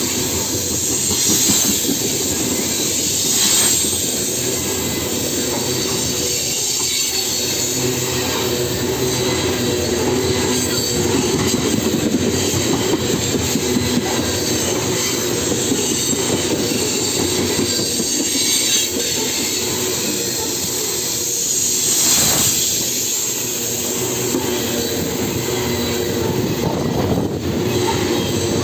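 Loaded coal cars of a freight train rolling past at close range: a steady heavy rumble and clatter of steel wheels on the rails, with high-pitched wheel squeal swelling up a few times.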